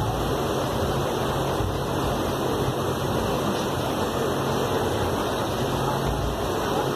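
Steady rushing background noise, even and unbroken, with no speech.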